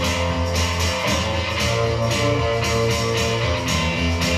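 Background music with a steady beat and no singing.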